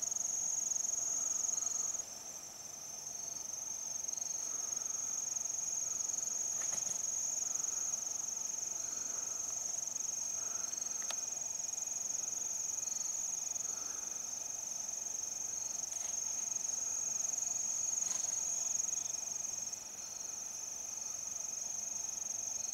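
Insect chorus of crickets or katydids: a steady, high-pitched, unbroken drone, with fainter short chirps repeating about once a second.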